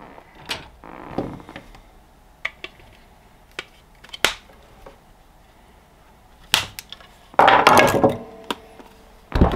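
Cutters snipping through the battery's internal 12 AWG wires: several sharp snips and clicks, with a louder spell of handling clatter about three quarters of the way in.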